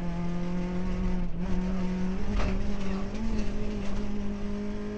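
Rally car engine running hard at high revs, heard from on board; its note steps up in pitch twice, with a brief knock about halfway through.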